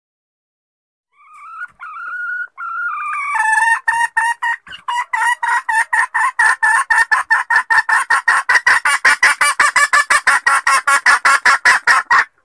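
Female junglefowl (ayam hutan) calling: a few drawn-out, slightly rising whining notes, then a long fast run of clucks at about five or six a second that stops abruptly. It is the hen call used as a lure to draw wild junglefowl cocks out of cover.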